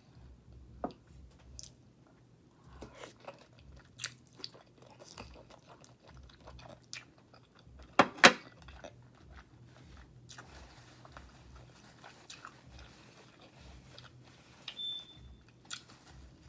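Close-up mouth sounds of a woman chewing buttered lobster tail meat: soft wet chewing with scattered clicks and smacks. Two sharp, louder clicks come about eight seconds in.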